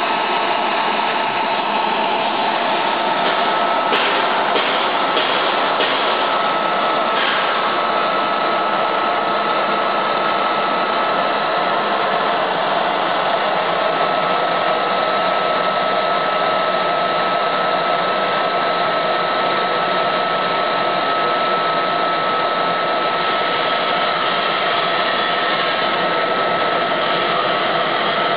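Steady whir of a Yuhiro PWR-series oil mist collector's fan running with a steady whine through it, mixed with the hiss of a compressed-air spray gun blowing water mist into its intake.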